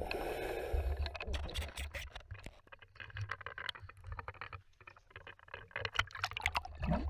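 Underwater sound picked up by a diver's camera. A burst of exhaled regulator bubbles fills the first second, followed by scattered sharp clicks and knocks over a low rumble.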